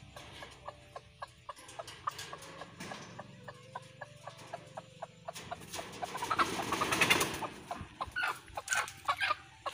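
Desi country hens clucking in a wire-mesh cage while one is being caught by hand. About six seconds in comes a loud scuffle, followed by a run of sharper, shriller calls.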